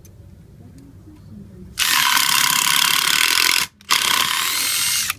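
Makita TD132D cordless impact driver run with no load: a loud, steady, rasping mechanical noise for about two seconds, a short break, then another second-long run. The tool is sold as making an abnormal noise, and this rasp is that noise.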